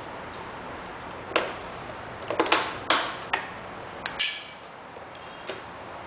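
Sharp plastic clicks and clacks as the battery compartment cover on the underside of a robot vacuum cleaner is unclipped and pulled off, a quick irregular series of them over about three seconds, with a last faint click near the end.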